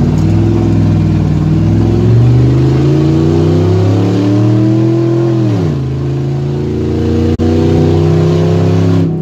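Pickup truck engine revved hard and held high during a donut, its pitch creeping up, then dropping sharply a little over halfway through to a lower steady revving that eases off at the end.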